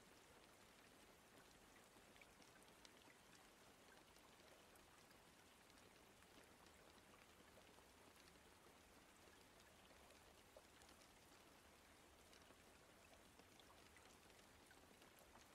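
Faint steady rain: an even hiss with scattered small drop ticks.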